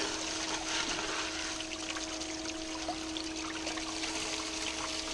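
Water running and trickling down a sluice box over a steady hum, with faint scattered clicks.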